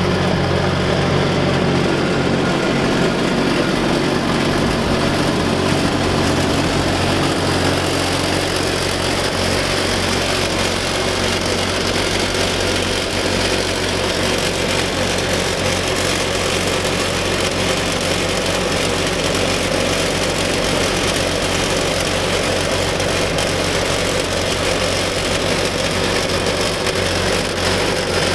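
John Deere 8960's Cummins six-cylinder turbo diesel running steadily just after a cold start, with an exhaust leak that the owner points out.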